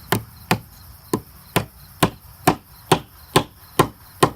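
A cherry wedge being driven into a through mortise with steady hammer blows, about two strikes a second, ten in all.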